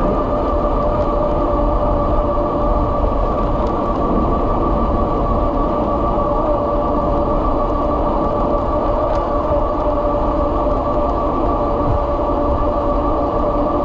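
Kepler e-bike cruising at about 30 mph: a steady whine over a heavy rush of wind and road rumble on the microphone.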